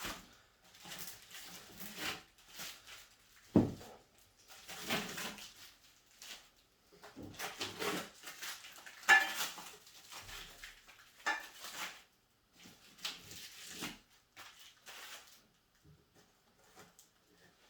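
Irregular rustling, scraping and clunking of packaging and parts being handled while the chicken plucker is unpacked, with a sharp knock about three and a half seconds in.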